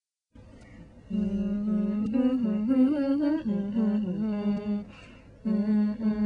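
A person humming a melody without words, starting about a second in, breaking off briefly just before five seconds and then going on.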